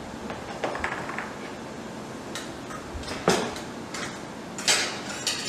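Knocks and clinks of a stainless steel blender jar and its lid being handled: a few light clicks in the first second, a sharper knock about three seconds in and two more near the end.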